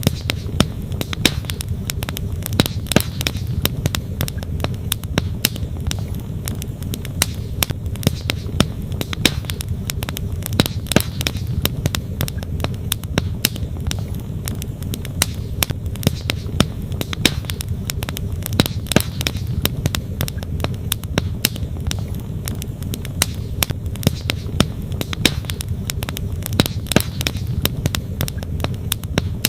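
Wood campfire crackling, with frequent sharp, irregular pops and snaps, over the steady rush of a flowing creek.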